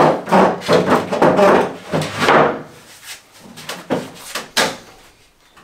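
Wood being handled: a run of knocks and scraping, then two sharp knocks near the end.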